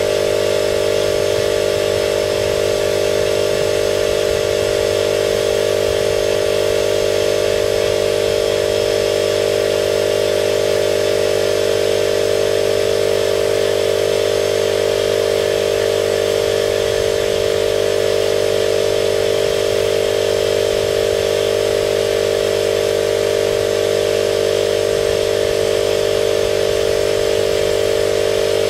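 Spray-painting equipment's motor running steadily and loudly: a constant drone over a low hum, with no change in pitch or level.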